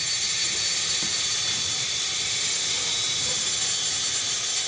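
The turbofan engines of an Avro RJ85 jet running steadily: a high steady whine over an even rushing hiss.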